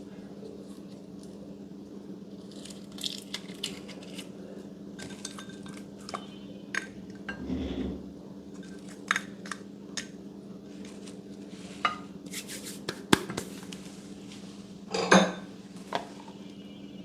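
Scattered clicks, taps and clinks of a utensil against a bowl while slime is handled, over a steady low hum. The loudest clatter comes about fifteen seconds in.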